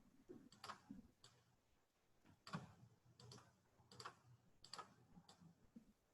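Faint computer mouse clicks, about seven at irregular spacing, over quiet room tone.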